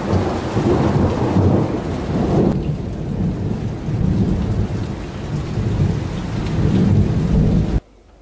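Thunderstorm: steady heavy rain with deep rolling thunder rumbling under it, the rain hiss easing a little after a couple of seconds; the sound cuts off abruptly near the end.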